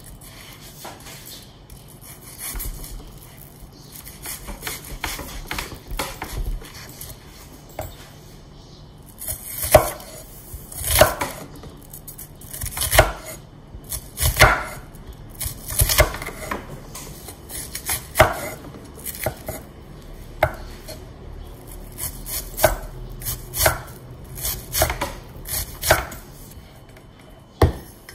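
Cleaver chopping a large onion on a wooden chopping board: a run of irregular knocks of the blade against the board, sparse and light at first, then louder and closer together from about ten seconds in.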